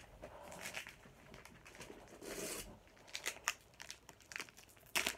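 Pokémon booster pack wrapper being torn open and crinkled: quiet, scattered rustling, turning into a run of sharper crackles in the last two seconds.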